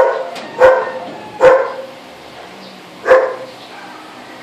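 A dog barking four times in single sharp barks, three close together and the last about a second and a half later.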